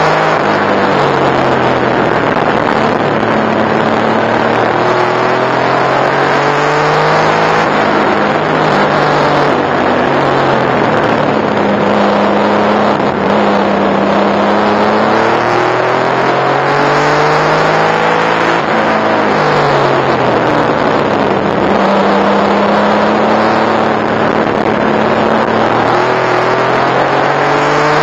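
Porsche 964 Turbo's air-cooled turbocharged flat-six heard from inside the race car's cabin at racing speed. The engine pitch climbs in long pulls and eases back several times, drops sharply under braking about two-thirds through, then climbs again, over steady wind and road noise.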